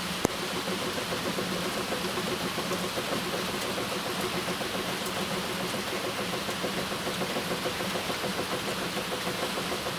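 Steady hiss of heavy rain, with a low, evenly pulsing hum running under it and a single sharp click right at the start.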